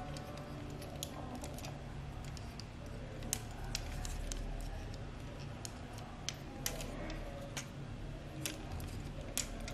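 Plastic parts of an Optimus Prime transforming toy clicking and snapping as they are moved by hand, in irregular small clicks with a steady low hum underneath.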